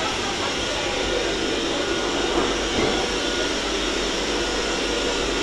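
Steady hum and hiss of an electric train, even throughout with faint steady tones and no distinct knocks or events.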